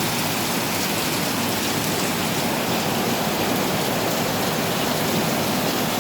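Heavy rain falling steadily, an even, dense hiss with no let-up.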